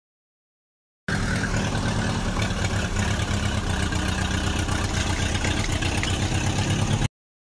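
Truck engine sound effect running steadily with a fast low throb, cutting in sharply about a second in and cutting off abruptly near the end.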